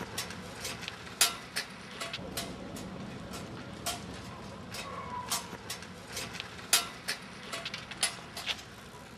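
Bicycle being ridden, rattling with irregular sharp clicks and clanks over a steady rolling noise.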